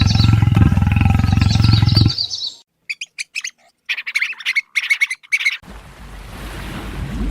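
Animal calls: a loud, low, pulsing call with a high trill above it for about two seconds, then after a short pause a run of quick, high chirps.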